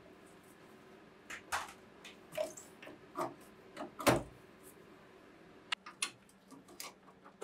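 Plastic wiring-harness connectors being worked loose and pulled off the circuit boards in a pinball machine's backbox: scattered light clicks and wire rustles, the sharpest about four seconds in.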